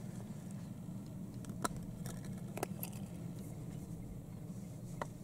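Steady low rumble of wind on the microphone, with a few small sharp clicks, the loudest about a second and a half in.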